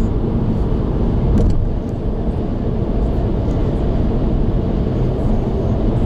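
A car cruising on an expressway, heard from inside the cabin: a steady low rumble of tyre and wind noise.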